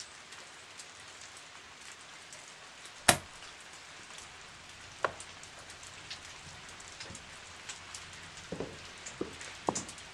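Steady hiss of rain with scattered small drips. A single sharp knock about three seconds in, and a few softer knocks near the end.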